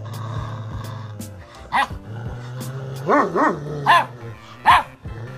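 Rottweiler puppy giving five short, high barks, two of them close together in the middle, over background music.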